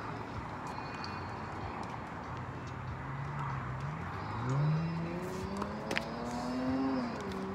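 A motor vehicle on a nearby road accelerating. Its engine note climbs steadily over several seconds and dips briefly near the end, as at a gear change, over a steady hiss of traffic. A single sharp knock of a tennis racket striking the ball comes about six seconds in.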